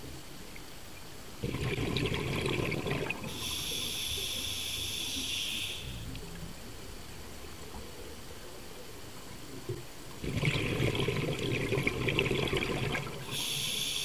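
A scuba diver breathing through a regulator: twice, a burst of exhaled bubbles followed by a high hissing whistle from the regulator on the in-breath.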